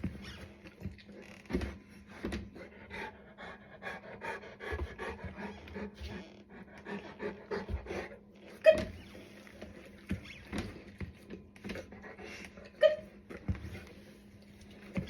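Black Russian Terrier panting, with a few sharp knocks or clicks standing out, the loudest about nine seconds in.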